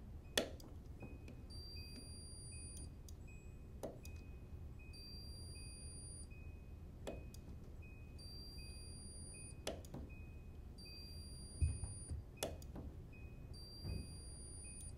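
Handheld spot welder firing on a thin steel collar shim: about six sharp snaps, one every two to three seconds, as the shim is tacked to the strain gauge's end block. A faint electronic beep repeats steadily in the background.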